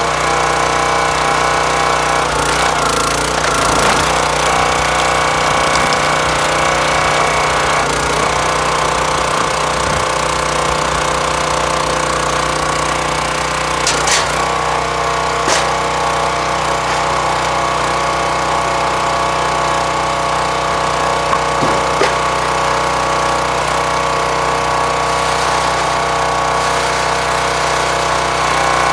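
Small engine of a hydraulic log splitter running steadily while the ram pushes ash through a 4-way wedge, with several sharp cracks and snaps as the wood splits apart.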